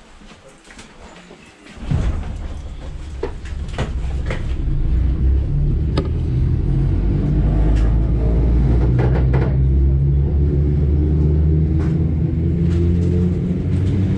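SKM electric multiple unit pulling away from a station: about two seconds in, a sudden low rumble and steady hum of the traction drive set in. They grow louder over the next few seconds as the train gathers speed, then hold steady, with a few scattered clicks.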